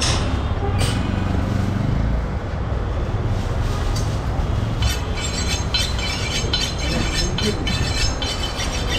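Steady rumble of busy street traffic, with quick light metallic clinks ringing over it from about five seconds in.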